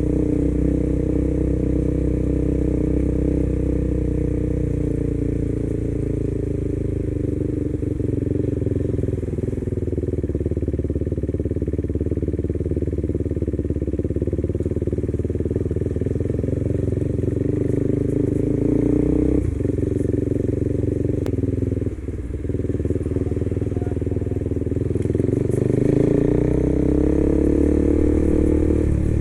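KTM 390 motorcycle's single-cylinder engine running on the move, its revs easing off in the first few seconds and then holding steady. Past the middle the sound drops briefly twice as the throttle closes, and near the end the revs climb as the bike accelerates.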